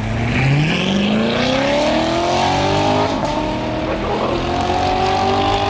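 A car engine accelerating, its pitch climbing smoothly and steadily for about five seconds.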